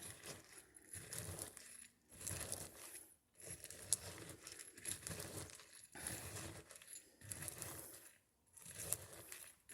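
A spoon stirring cereal in milk in a bowl: soft swishing strokes about once a second, with a few light clinks of the spoon against the bowl.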